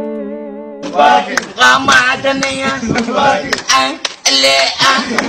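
A long held note fading away, then a song with singing over a regular beat starts about a second in.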